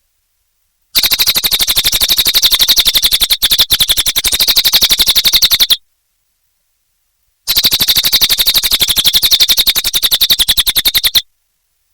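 A cililin bird singing: a loud, rapid trill of evenly repeated notes. It starts about a second in and runs in one bout with a brief break, stops suddenly, then comes back in a second bout that cuts off shortly before the end.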